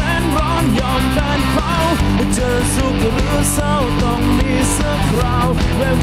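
Rock band playing a song, led by electric guitar over bass and drums, with a bending melodic line.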